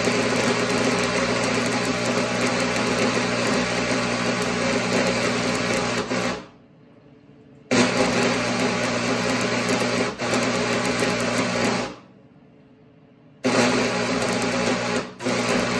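Electric arc welding on steel: a steady buzzing hiss with a low hum under it. It comes in three runs, each cutting off abruptly, with pauses of about a second and a half between them.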